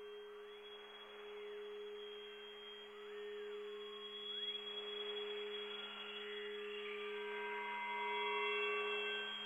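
Ambient electronic music: a steady low drone with soft sustained higher tones and slow gliding sweeps, swelling gently toward the end.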